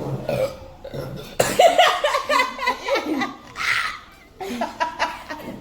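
A person belching loudly from gulped carbonated Pepsi, mixed with laughter.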